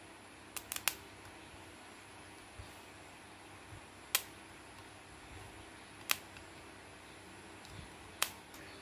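Homemade capacitor spot welder discharging through its two-pronged probe against a loudspeaker's steel frame: sharp spark snaps, three in quick succession just under a second in, then single snaps about every two seconds.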